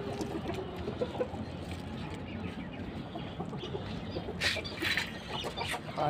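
Caged chickens clucking, with a couple of louder, sharper sounds near the end.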